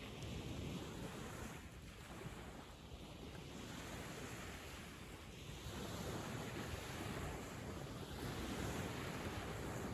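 Ocean waves breaking and washing up a sandy beach: a continuous surf wash that swells and ebbs, growing louder in the second half.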